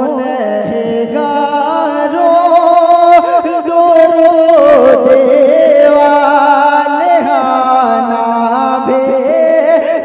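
A man singing a naat unaccompanied, drawing out long held notes with wavering ornaments and slow slides between pitches.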